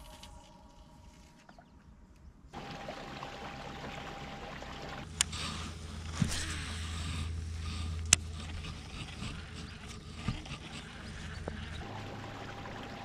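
Motorized fishing kayak under way: water rushing along the hull over a steady low hum, starting abruptly after a quiet couple of seconds. Two sharp clicks come in the middle.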